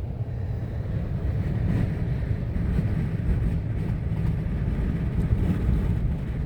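Gale-force wind buffeting the truck, heard from inside the cab as a steady, rough, low rumble.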